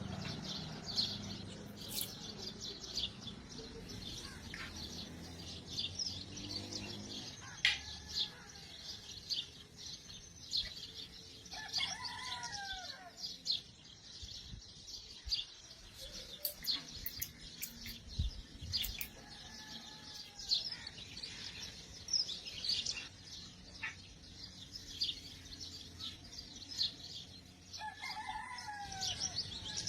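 Small birds chirping throughout, with chickens calling twice, once in the middle and once near the end. A few sharp clicks sound among them.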